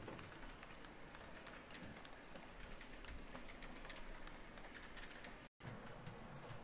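Faint, irregular clicking and rolling of a model freight train's wheels running over the track. The sound drops out for a moment about five and a half seconds in.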